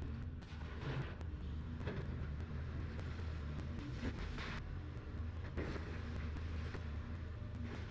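Excavator engine running steadily with a low hum, with several short noisy bursts coming and going over it as the machine works.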